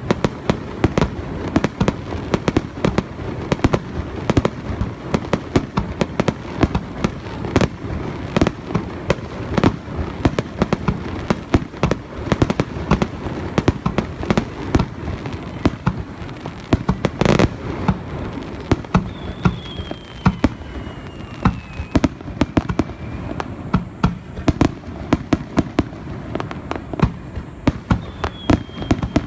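Fireworks finale: a rapid, continuous barrage of aerial shell bangs and crackles, with one longer, louder blast about two-thirds of the way through. A faint whistle falls in pitch twice in the second half.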